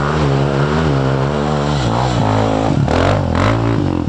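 Dirt bike engine pulling up a steep trail climb, running steadily and then revving down and back up several times in the second half as the throttle is worked.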